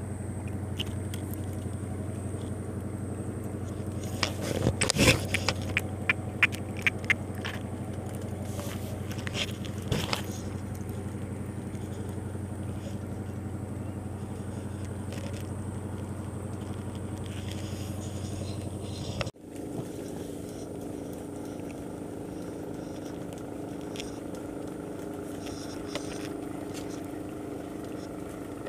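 A steady engine-like drone, with a quick run of sharp clicks and scrapes about four to seven seconds in. After a brief dropout about two-thirds through, the drone carries on at a higher pitch.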